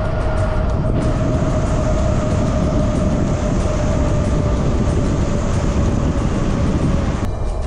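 Wind rush and tyre rumble from a Wired Cruiser e-bike ridden fast on asphalt, loud and steady, with a steady whine running through it. The sound cuts off abruptly near the end.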